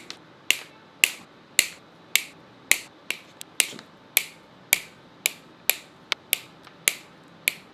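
A hand cable cutter working through electrical power cable: sharp, ringing metallic clicks about two a second, with a few smaller clicks in between.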